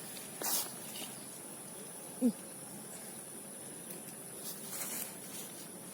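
Steady high-pitched insect chirring in the background. A short rustling burst comes about half a second in, and a brief low vocal sound a little after two seconds.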